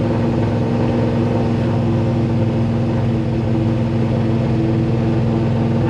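Ford F100's 429-cubic-inch small-block Ford V8 with Boss 429-style hemi heads and twin Dominator carburetors, heard from inside the cab while cruising at a steady, light throttle; the engine note holds one pitch with no revving. The driver reckons, just from listening, that the carburetors need some tuning.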